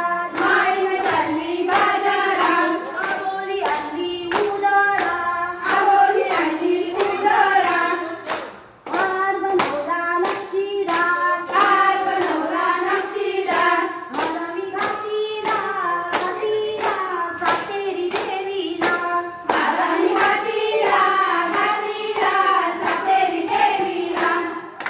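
A group of women singing a Konkani fugdi folk song together, keeping time with steady hand-clapping at about two claps a second. The song breaks off briefly about eight and a half seconds in, then starts again.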